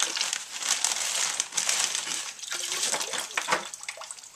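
Water moving in a sewage pump pit and plastic sheeting crinkling as it is handled: a noisy rustle with small clicks that tails off toward the end.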